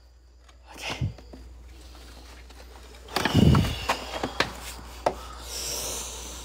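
Handling noise: rubbing and scraping with a few sharp knocks. The loudest burst of rubbing comes about three seconds in, and a brief hiss follows near the end.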